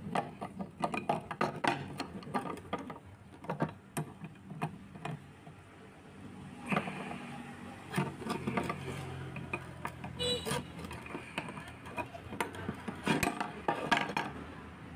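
Irregular small metallic clicks and clinks as a brass ball valve's threaded body is unscrewed by hand and its parts handled, with a few louder clatters.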